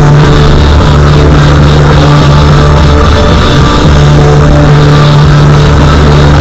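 Loud rock background music with guitar and sustained low notes that drop out briefly a little past the middle.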